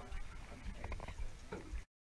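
Low rumble of wind and handling noise on a handheld action camera's microphone, with scattered small clicks and knocks, cutting off abruptly to silence near the end.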